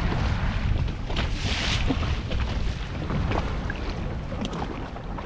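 Wind buffeting the microphone on an open boat, over the hiss of water rushing and slapping along the hull, with a louder swell of splashing about a second and a half in.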